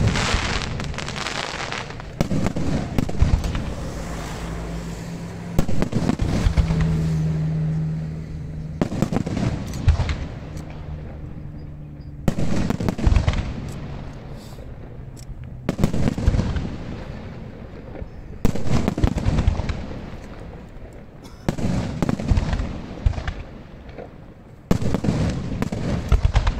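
Aerial firework shells bursting in a steady series: about nine loud bursts roughly three seconds apart, each followed by a fading rumble.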